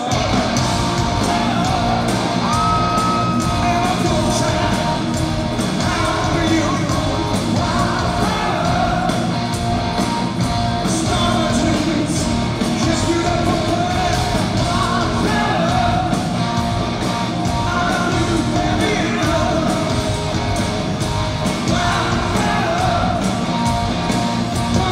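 Rock band playing live and loud: electric guitars, drums and a singer's vocals, recorded from the audience in a large hall.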